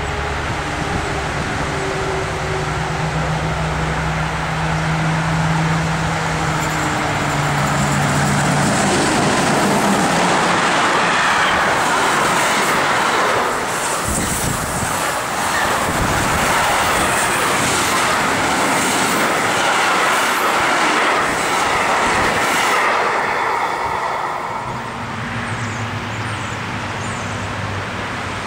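Electric freight train hauling container wagons passing close at speed. A steady low hum as it approaches, then about fifteen seconds of loud wheel-and-rail noise as the wagons go by, which drops off a few seconds before the end.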